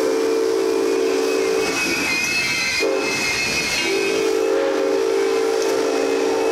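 Steam locomotive whistle blowing two long blasts over the steady hiss of escaping steam, as the engine comes into the station. The first blast cuts off a couple of seconds in; the second starts about four seconds in and is still sounding at the end.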